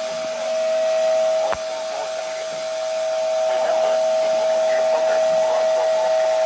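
Emergency alert tone from a weather radio broadcast: one steady, loud, unbroken tone that signals an incoming warning.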